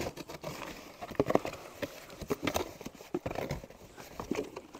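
Cardboard shipping boxes being handled and opened: irregular knocks, scrapes and rustles as the flaps are pulled open.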